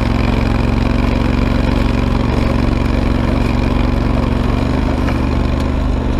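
Ariens Grand Sierra garden tractor's engine running steadily while the tractor pushes snow with its front blade.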